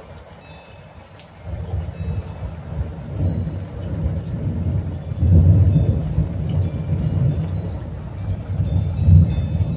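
Thunder rumbling, starting about a second and a half in, loudest in the middle and swelling again near the end, with rain falling.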